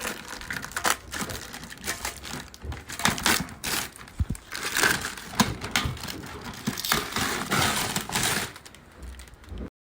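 Wheel packaging being handled and opened: cardboard and plastic wrap crinkling and tearing, with irregular knocks and clicks.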